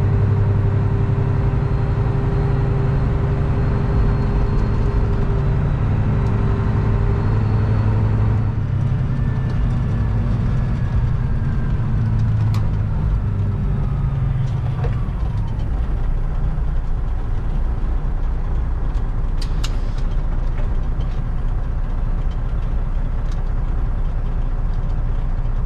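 Semi truck's diesel engine running with road noise, heard from inside the cab while driving. The engine note changes about eight seconds in, and there are a few sharp clicks about three-quarters of the way through.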